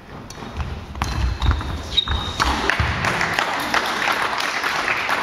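Badminton rally on a wooden sports-hall floor: players' feet thudding, sharp racket-on-shuttlecock hits and a shoe squeak about two seconds in. After that a steady wash of hall noise and voices takes over as the rally ends.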